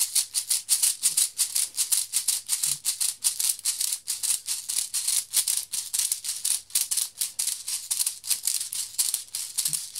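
Airsoft speed loader being pumped by hand, pushing 0.20 g plastic BBs into a pistol magazine: a fast, even rattle of BBs in plastic, about five strokes a second.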